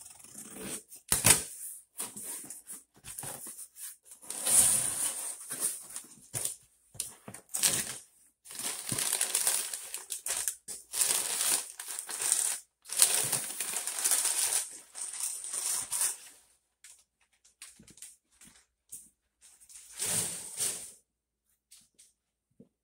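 A cardboard box being unpacked: a sharp snap about a second in as the tape is cut and the flaps come free, then crumpled kraft packing paper rustling and crinkling in irregular bursts as it is pulled out from around a styrofoam insert.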